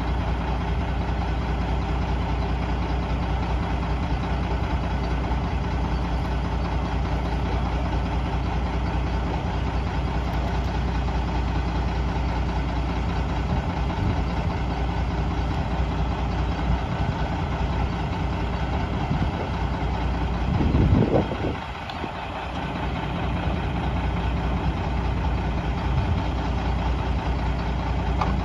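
Mack RD roll-off truck's diesel engine idling steadily, with one brief louder surge about three-quarters of the way through before it settles back to idle.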